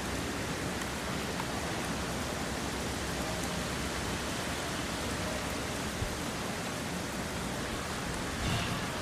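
Steady, even hiss of outdoor background noise with no distinct source, broken by a faint knock about six seconds in and a brief, slightly louder sound near the end.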